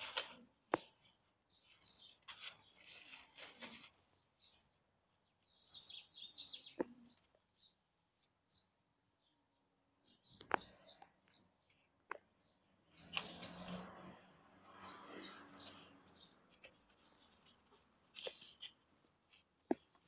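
Small birds chirping in short bursts, mixed with scattered rustles and sharp clicks of dry leaves as a cat moves about and pulls at a dead bird.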